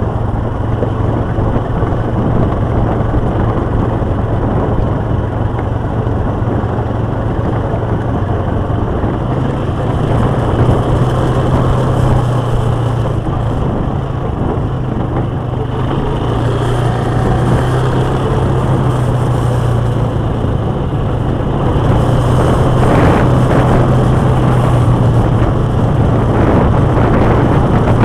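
Quad bike engine running steadily under way on a gravel track, with constant tyre and wind noise. The engine note steps up a little about ten seconds in, and it grows slightly louder in the last few seconds.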